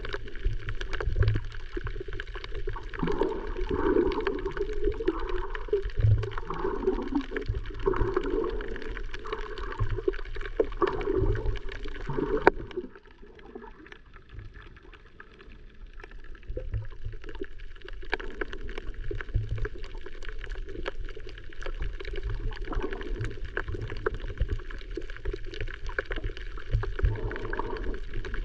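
Water sloshing and gurgling around a camera moving through the water while snorkeling. There is a sharp knock about twelve seconds in, after which the sound goes quieter and steadier.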